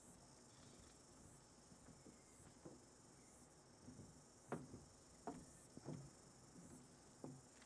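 Near silence with a faint steady high hiss, and from about halfway in a handful of soft footsteps: a woman's heeled shoes knocking on the stage floor as she walks across it.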